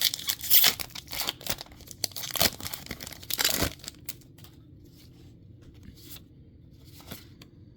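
Foil booster pack wrapper crinkling and tearing for a few seconds, then a few light ticks of trading cards being handled.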